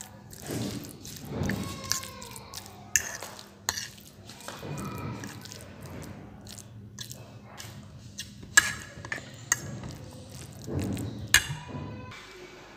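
A metal fork mashing a soft potato and cauliflower filling into a paste on a plate: wet squishing, with sharp clinks of the tines against the plate every second or two.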